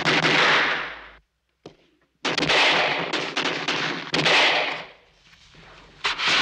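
Firework signal rockets launching one after another: four loud rushing whooshes, each lasting a second or two.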